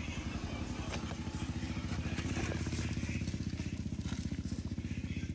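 A small engine idling steadily, with a fast, even pulse.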